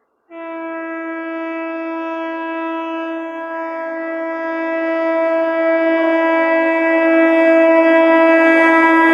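WAP-4 electric locomotive's horn sounding one long, steady blast at a single pitch, starting suddenly and growing louder as the train approaches.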